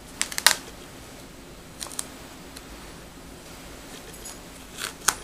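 Clear plastic protective film being peeled up off the wet back of an iPad and handled: a few sharp, crinkly clicks and snaps, in clusters near the start, about two seconds in, and near the end.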